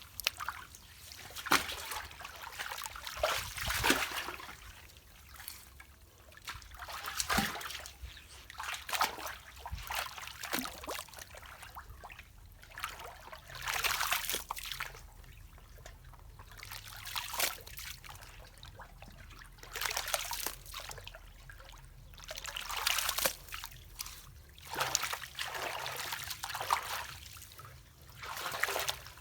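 Water splashing and trickling in irregular splashes every second or two, as debris is worked out of a clogged, flooded culvert.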